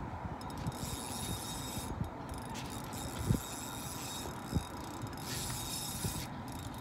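Steady rushing wind noise on the microphone, with two soft knocks about a second apart near the middle.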